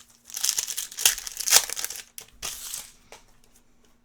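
Foil trading-card pack wrapper crinkling as it is torn open, in a few quick rustling bursts that die away about three seconds in.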